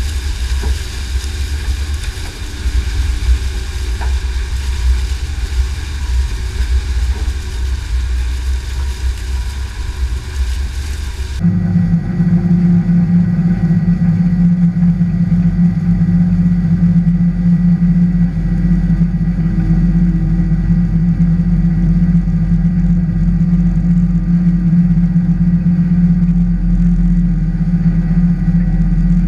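Cyclone no-till manure injector and its manure tanker working through corn stalks: a steady, rough mechanical rumble with engine drone. About eleven seconds in the sound changes abruptly to a steadier low hum that carries on.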